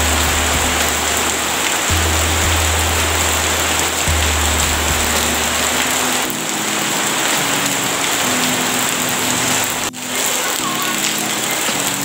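Steady rain falling on wet paving stones, a dense patter and splash, with background music of sustained low notes that change about every two seconds underneath. The sound briefly drops out about ten seconds in.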